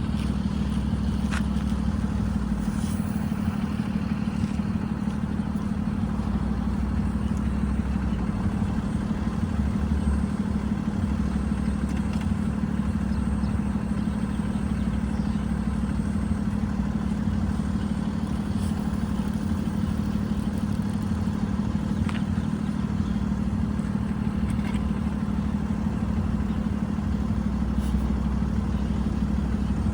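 Heavy paving machinery engines running steadily: a continuous low drone with a few faint clicks and knocks.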